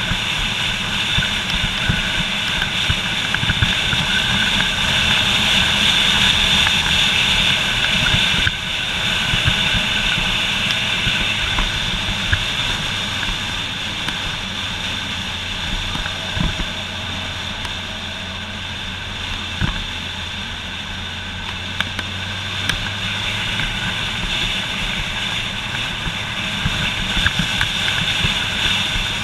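Motorcycle running steadily at road speed, its engine note mixed with rushing air noise. The level drops a little after about eight seconds and builds again near the end.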